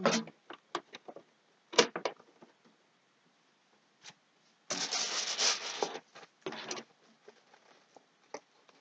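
A pack of wooden pencils being handled and pulled open: scattered light taps and clicks, then a burst of rustling about five seconds in that lasts over a second, with a shorter rustle just after.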